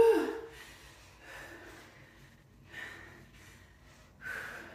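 Heavy breathing during overhead dumbbell presses: a short loud vocal sound right at the start, then forceful out-breaths about every second and a half, one per press.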